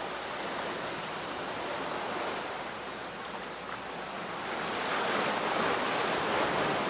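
Steady outdoor rushing noise with no distinct events, swelling louder for the last couple of seconds.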